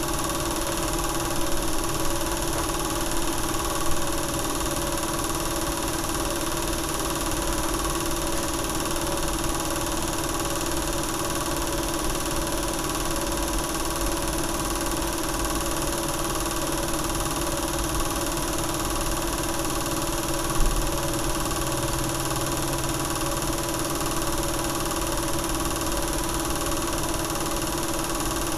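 Steady mechanical whirr and hum of a home-movie film projector running, with two brief clicks, one about four seconds in and one about twenty seconds in.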